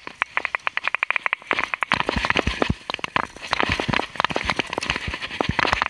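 Mountain bike ridden down a rough dirt trail: rapid clicking and rattling, with low thumps from about two seconds in as it goes over bumps.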